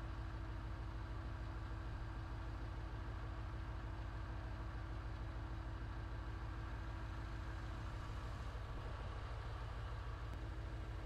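The 383 stroker small-block V8 of a 1988 GMC K1500 idling steadily, with an even low pulse.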